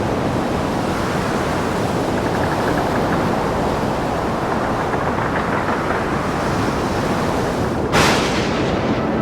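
A steady rushing noise with a sudden louder burst about eight seconds in.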